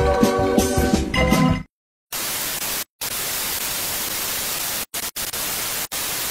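Music that cuts off about a second and a half in, then after a short silence a steady television static hiss, broken by brief dropouts about three and five seconds in.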